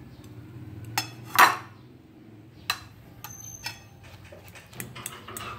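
A utensil clinking and knocking against a bowl as chopped eggplant is added to beaten eggs: a loud clatter about one and a half seconds in, then several lighter, ringing clinks. A steady low hum runs underneath.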